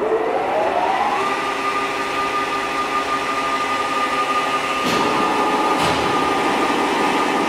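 Blanchard rotary surface grinder's wheel head motor spinning up, a whine rising in pitch for about a second and then running at a steady speed. Two faint knocks come about five and six seconds in.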